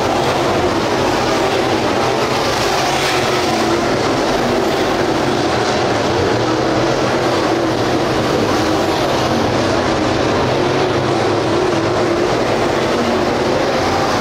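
A pack of dirt late model race cars with GM 602 crate V8 engines racing around a clay oval, a steady loud drone of several engines at once.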